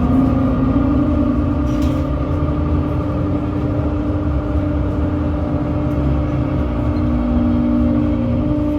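Loud live noise music: an amplified drone of several steady held tones over a dense low rumble, with a lower tone joining in for a couple of seconds near the end.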